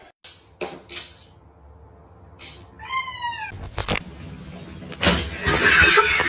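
A domestic cat gives one short meow about three seconds in, rising then falling in pitch. A few light clicks or taps come before it, and a scratchy rustling noise lasts about a second near the end.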